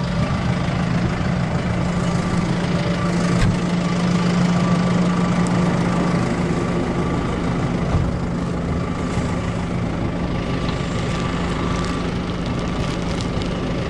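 Farm tractor's diesel engine idling steadily, with two light knocks about three and a half and eight seconds in.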